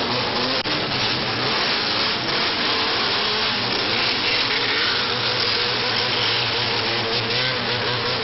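Several bosozoku gang vehicle engines running and revving together, their pitches rising and falling over one another without a break.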